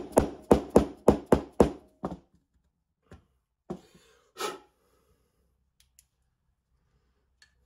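Mallet tapping a length of PVC pipe to drive a new fork seal into a Yamaha XT500 fork leg: a quick run of light taps, about three a second, over the first two seconds as the seal nears fully seated. A few separate knocks follow.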